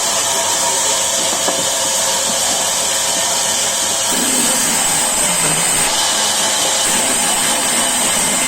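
Sawmill saw running and cutting wood, a loud, steady hissing noise with no breaks.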